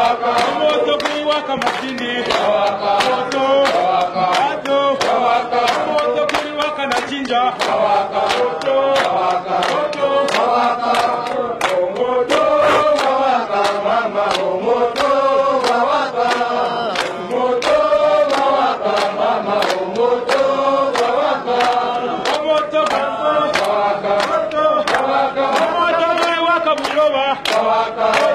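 A group of men singing a chant together, with steady hand-clapping at about two claps a second.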